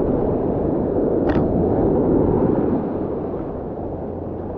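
Steady rumbling noise of wind on the microphone and surf washing in around the angler's feet. It eases slightly about three seconds in.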